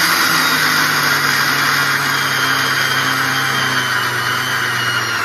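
Electric mixer grinder running steadily at speed, its steel jar grinding roasted, peeled peanuts into powder.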